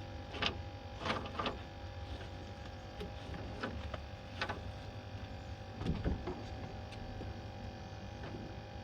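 Irregular knocks and rattles from a cast net and its catch of baitfish being handled on a boat, over a steady hum.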